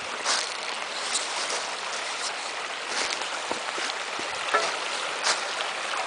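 Shallow freshwater stream running over cobble and rock riffles: a steady rushing babble of water.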